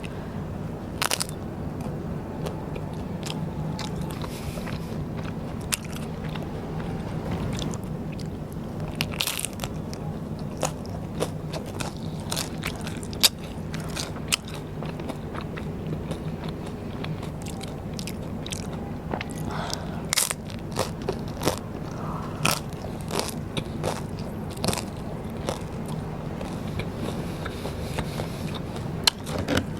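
A person biting and chewing Vietnamese rice paper (bánh tráng) dishes, with irregular crisp crunches and chewing mouth sounds over a steady low hum.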